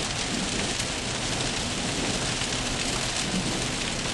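Rain falling steadily during a thunderstorm: an even, unbroken hiss with no single loud crack.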